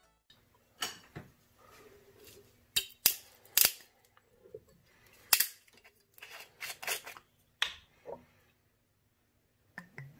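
Screw cap of a glass Bacardi Superior rum bottle being twisted open: a series of sharp clicks and cracks spread over several seconds, a few of them loud, as the cap seal breaks.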